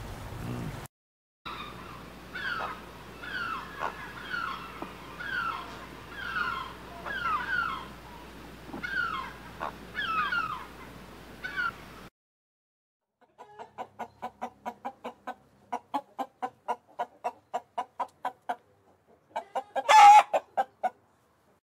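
Chickens calling in three separate cuts: first a run of about a dozen short, falling calls; then a fast run of clucks, about five a second; then one loud squawk near the end.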